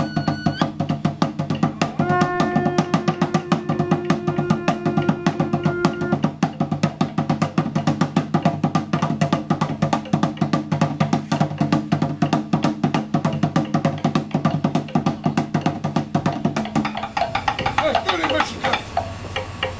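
Fast, steady drumming accompanying a ritual dance, over a low continuous drone. A single held note sounds for about four seconds starting two seconds in, and near the end the drone drops out and voices come in.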